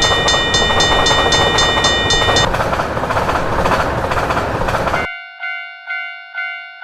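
A train passing a level crossing with a loud rushing rumble. For the first two and a half seconds a crossing bell dings rapidly over it, about four times a second. At about five seconds the train noise cuts off abruptly, and a lower-pitched crossing bell rings on alone, about twice a second, each ding fading.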